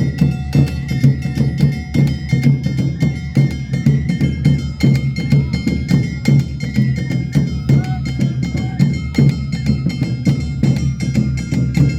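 Awa Odori festival music played live: taiko drums and sharp metallic or wooden strikes in a fast, continuous rhythm, with a few held high notes above them.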